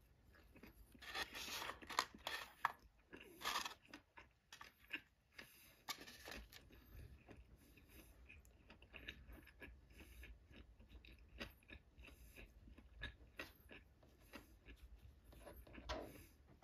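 Faint close-up crunching and clicking of eating and of handling the empty wooden bento box and chopsticks, loudest in a few crunchy bursts in the first four seconds.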